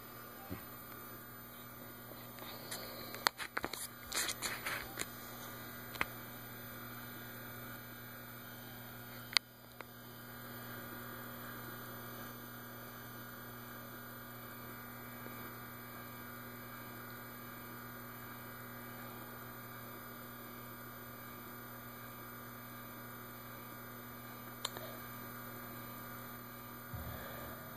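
A steady low electrical hum, with a cluster of clicks and knocks about three to five seconds in and a single sharp click near the tenth second.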